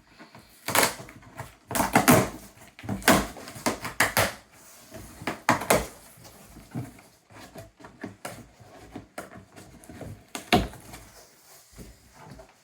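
A cardboard shipping box being handled and opened: irregular knocks, scrapes and rustles of cardboard and packing, thickest in the first half, with one sharp knock near the end.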